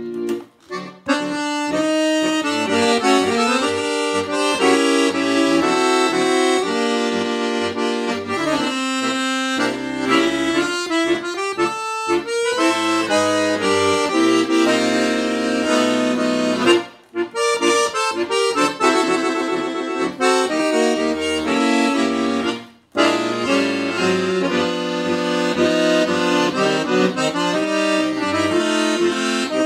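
Ottavianelli four-voice piano accordion (16', 8', 8', 4' reed sets) playing a tune, melody on the treble keys over a bass-button accompaniment. The playing breaks off in short gaps about a second in, around halfway, and again a few seconds later.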